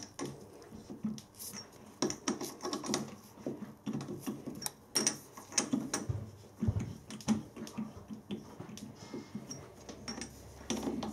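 Chuck key clicking and clinking in the jaw screws of a four-jaw lathe chuck as each jaw is nipped up in turn to grip the workpiece: irregular light metal clicks and knocks.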